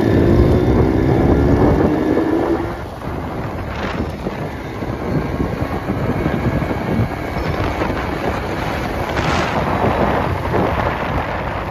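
Motorcycle engine speeding up, its pitch rising for the first couple of seconds, then heavy wind buffeting the microphone over the running of motorcycles.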